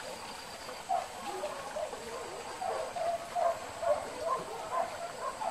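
Pack of hunting dogs barking and yelping, many short barks in quick, irregular succession, as the dogs work a wild boar in the brush.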